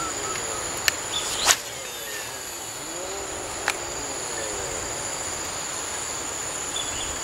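Insects droning on one steady high pitch, with a few sharp clicks about one and one-and-a-half seconds in and another near the middle.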